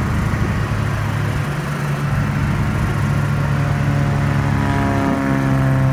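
A golf cart's engine running as the cart is driven along, steady, with its pitch shifting a little past halfway as the speed changes.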